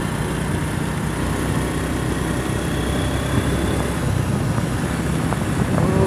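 Motorcycle being ridden at a steady speed: a steady engine hum with road noise.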